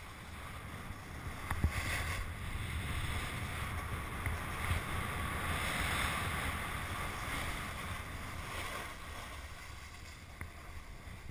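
Hiss and scrape of a rider sliding over packed, tracked snow, with wind rumbling on the helmet-mounted camera's microphone. It swells for a few seconds after the start and eases off near the end as the rider slows.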